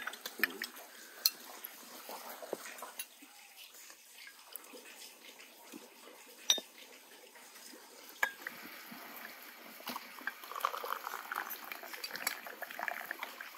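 Scattered clinks of tea glasses, saucers and cutlery being handled at a table. In the last few seconds, tea is poured from a glass teapot into a glass.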